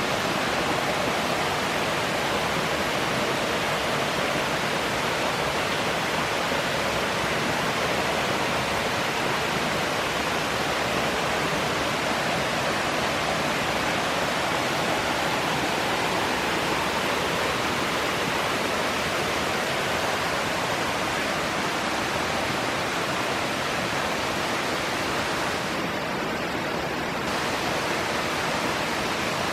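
Erawan Waterfall's cascades rushing steadily: an even, unbroken hiss of falling water.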